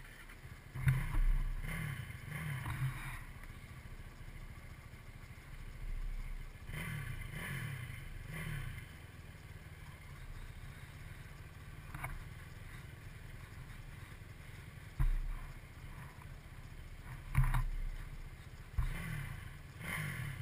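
Quad's engine idling with a steady low rumble, swelling now and then, with a few sharp knocks.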